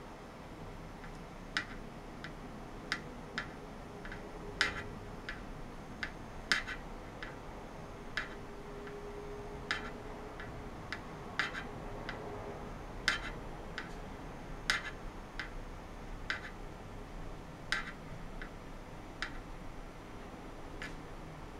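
Irregular sharp ticks, about thirty at uneven spacing and varying strength, from an ultrasonic probe tip pressed onto a metal box during ultrasonic oscillation, over a steady faint hiss.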